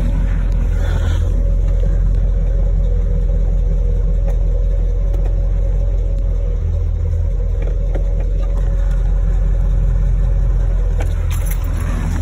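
1970 Chevrolet Impala being driven, its engine giving a steady deep rumble.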